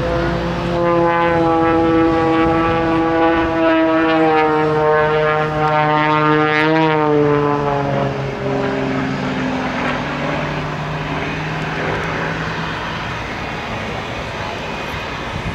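Propeller engine of a smoke-trailing aerobatic airplane droning with a steady pitch that rises slightly and then falls away about seven seconds in, leaving a rougher, slightly quieter engine noise.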